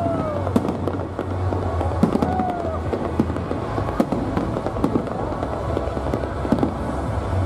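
Aerial fireworks bursting overhead: a continuous run of bangs and crackling, with sharper cracks about two and four seconds in, over the voices of a crowd of onlookers.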